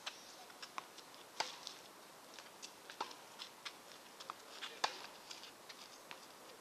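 Faint, sharp pops and clicks of a tennis rally: the ball striking rackets and bouncing on the court, at irregular intervals. The two loudest come about a second and a half in and just before five seconds in.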